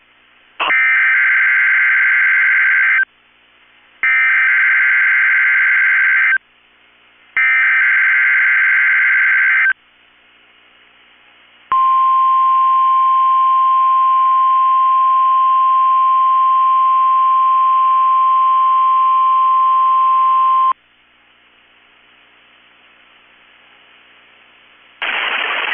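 NOAA Weather Radio Emergency Alert System signal for a Required Weekly Test. Three bursts of SAME digital header data come first, a harsh warbling screech each about two seconds long with a second between them. Then the steady 1050 Hz warning alarm tone sounds for about nine seconds and cuts off.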